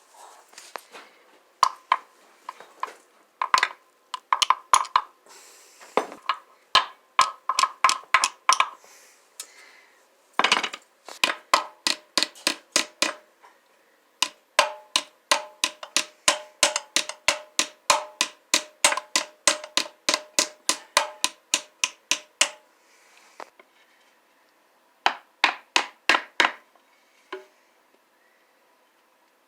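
Hammer striking metal again and again in runs of quick blows, a couple a second, with short pauses between the runs and a ringing tone through the longest run. This is typical of tapping a new transmission front pump seal into place to stop a leak.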